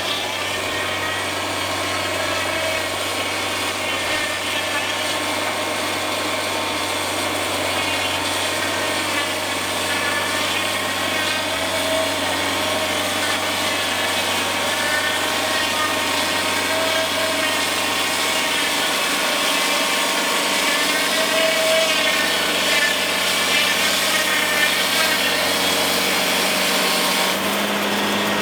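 Wood-Mizer portable band sawmill sawing through a large pine log: the engine runs steadily under load while the band blade cuts with a wavering whine. The note changes near the end.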